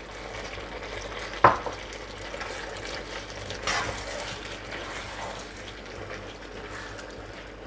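Chicken and vegetable stir fry sizzling in a pan while a spatula stirs and scrapes through it, with one sharp knock about a second and a half in.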